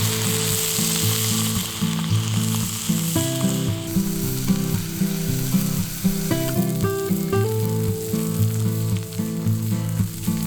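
Steak frying, a steady sizzling hiss that is strongest in the first few seconds, under background music.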